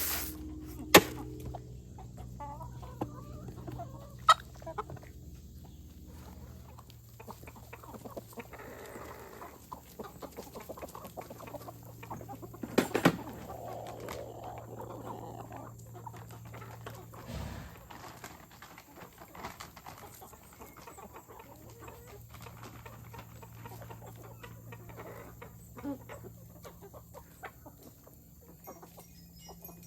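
Hens clucking, with occasional sharp knocks and clatters, the loudest about a second in and around thirteen seconds in.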